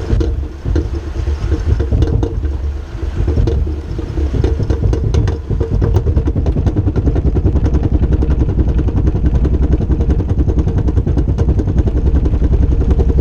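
Mercedes ML350 driving with a failed driveshaft carrier bearing, making a loud clattering drone. The drone is uneven at first, then settles about halfway through into a fast, even pulsing. The carrier bearing is absolutely toast.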